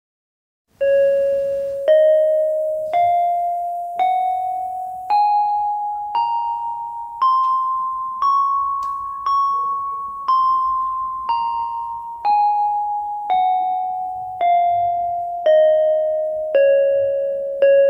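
Yamaha PSR-32 electronic keyboard playing the C-sharp major scale one note at a time, about one note a second, starting about a second in. It climbs one octave and comes back down, each note starting sharply and fading.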